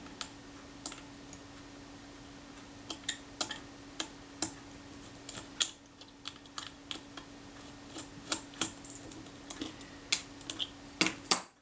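Small tools clicking and tapping on the metal parts of a Kodak Retina IIIC camera as its film advance lever is taken off: scattered light clicks, some in quick clusters, over a faint steady hum.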